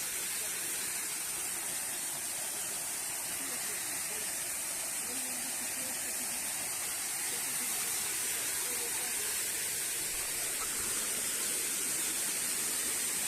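Small waterfall: water falling and splashing in a steady rush.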